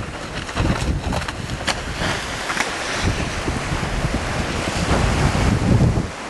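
Strong gusty wind buffeting the microphone with a low rumble, over wind-driven chop washing on the water. A few sharp crackles in the first half.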